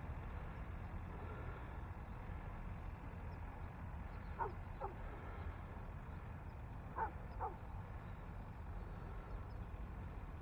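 A dog barking twice in quick pairs, the two double barks about two and a half seconds apart, over a steady low rumble.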